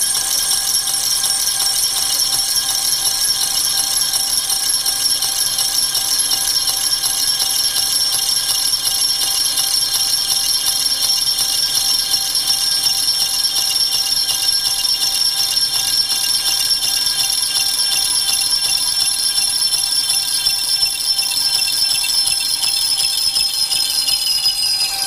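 Metal lathe parting off a tube, the workpiece ringing under the cutting tool with a loud, steady, high-pitched squeal. The ringing sags slightly in pitch over the last few seconds and cuts off suddenly at the end.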